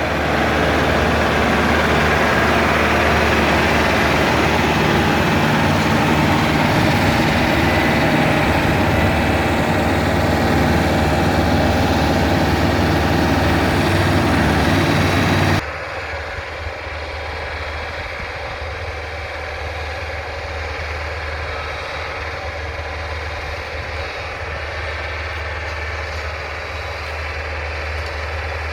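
Tractor engine running loud and steady while plowing a field. About halfway through, the sound drops suddenly to a quieter, steady low engine hum.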